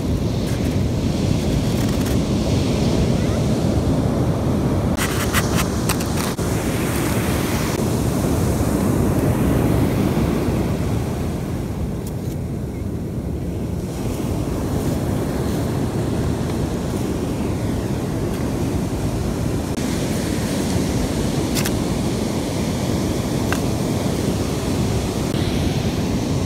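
Steady wind rushing over the microphone, a low, even rumble, with a few faint clicks from plastic toys being handled.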